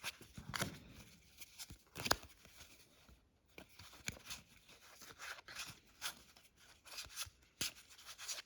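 Trading cards and their packaging being handled: faint, irregular rustling with small clicks and crinkles.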